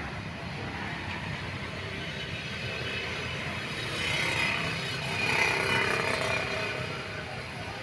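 Road traffic rumble with a vehicle passing by, swelling about four seconds in and loudest around five and a half seconds before fading.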